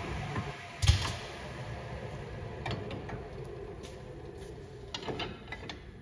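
Pertici Univer 330 double mitre saw running down, its steady hum fading away, with one heavy clunk about a second in and scattered light clicks and knocks near the end.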